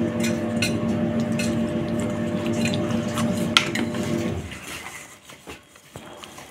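Wire whisk stirring flour batter in a stainless steel bowl, clinking and scraping against the metal, with one sharper clink about three and a half seconds in. A steady hum runs underneath and cuts off about four and a half seconds in.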